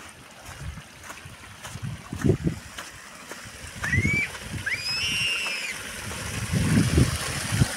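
Thin streams of water pouring off a concrete culvert ledge and splashing onto the wet ground, the splashing hiss growing louder from about four seconds in. Low thumps recur throughout, and there are a couple of short chirps around four seconds in.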